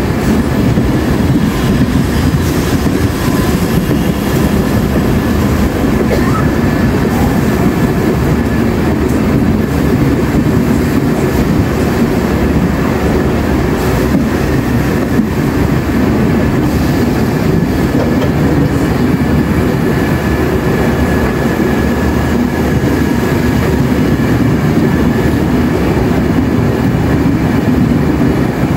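Passenger coaches of an Indian Railways Duronto express rolling slowly past close by, a steady rumble of steel wheels on the rails with a faint steady high whine over it.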